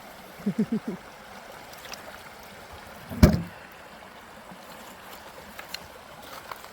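Steady rushing of a stream throughout. About half a second in there are a few brief voiced sounds, and a little after three seconds a single sharp knock.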